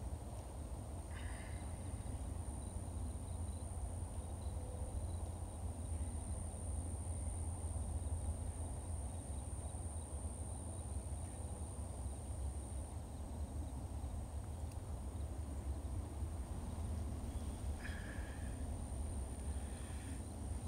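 Open-field ambience: a steady low rumble of wind on the microphone with a thin, steady high whine, and a couple of short high chirps about a second in and again near the end.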